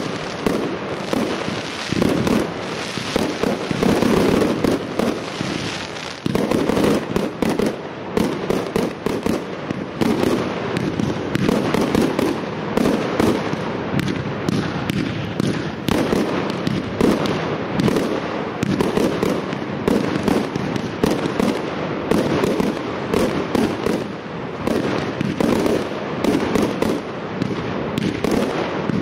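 Aerial fireworks bursting overhead: a rapid, unbroken barrage of bangs and crackles with no pause.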